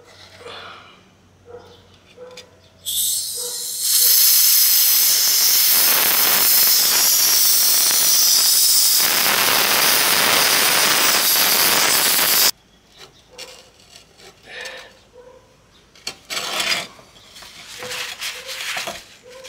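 Compressed air from an air compressor hissing out in one loud, continuous blast. It begins as a thinner hiss about three seconds in, comes in full about a second later and cuts off suddenly about twelve seconds in.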